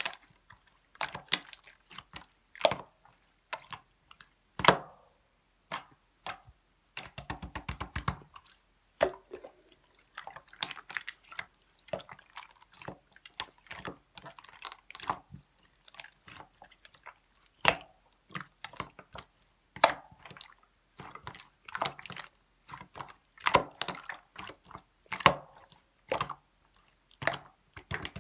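Clear slime being squished and pressed by hand, making a string of irregular wet clicks and sticky pops, with a quick rattle of clicks about seven seconds in.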